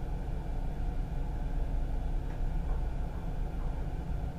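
Steady low rumble with a faint even hum inside the driver's cab of an NS Mat '64 electric multiple unit.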